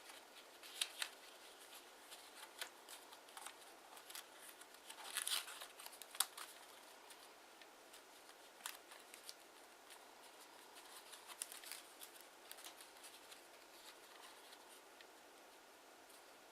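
Kraft origami paper being handled, folded and creased by hand: scattered light crinkles and taps, busiest in the first six seconds and thinning out after.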